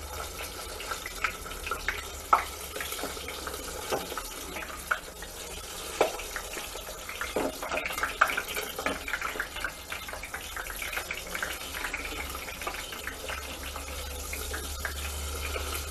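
Tomatoes and onion frying in hot oil in a covered enamel saucepan: a steady sizzle with frequent irregular crackles and pops.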